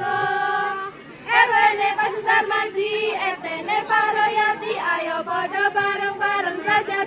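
Young women's voices singing a yel-yel group cheer song together, a melody with several long held notes.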